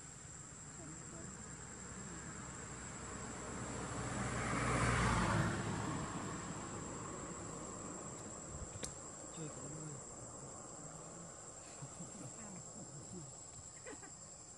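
Steady high-pitched insect drone. About four to six seconds in, a broad rushing sound swells up and fades.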